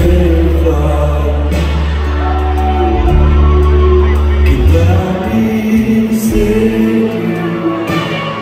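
Live band playing a song, with a male lead singer's voice over long held notes and deep sustained bass.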